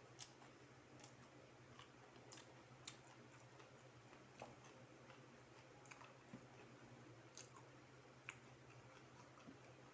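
Faint, scattered crisp clicks of someone chewing battered fried chicken, over a low steady hum.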